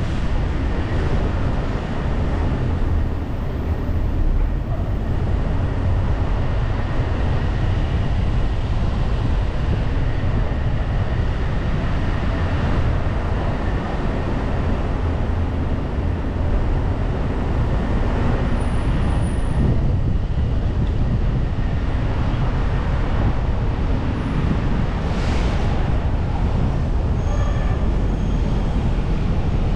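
Steady low rumble of road and wind noise from a car driving along city streets.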